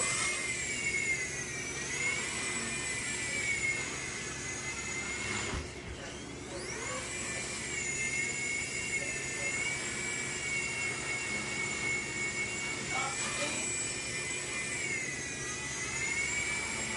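Walkera CB100 micro RC helicopter's twin brushless motors and rotors running with a high whine that sags and rises with the throttle; about six seconds in it nearly cuts out and spools back up.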